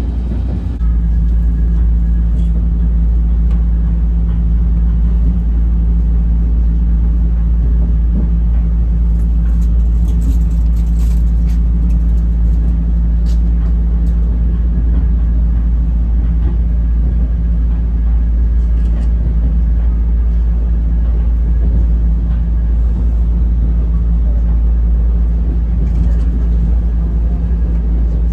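Steady low rumble of a vintage passenger carriage rolling along the rails behind a steam locomotive, heard from inside the car, with a constant low drone and now and then faint clicks and rattles.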